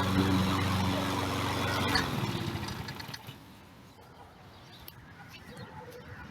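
1990s Toro walk-behind lawn mower's small engine running steadily after its carburetor was cleaned, then shut off about two seconds in and winding down to a stop.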